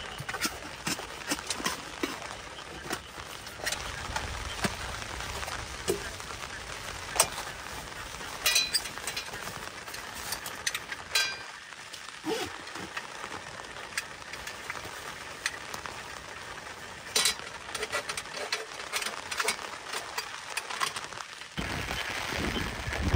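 Rain pattering on a tent's fabric, heard from inside the tent: a steady hiss dotted with many sharp ticks of single drops and clicks.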